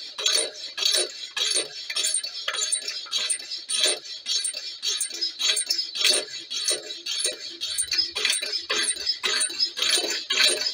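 Homemade alpha-type Stirling engine running, with a rhythmic squeak and grind about three times a second from its piston slides over a steady high squeal. The owner suspects the brass piston guides on the hot side are heating up, going soft and binding on the steel.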